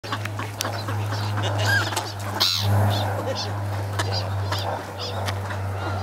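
A crowd of ducks and black-headed gulls at close range calling with many short, high cries, with one louder cry a little before halfway, over a steady low hum.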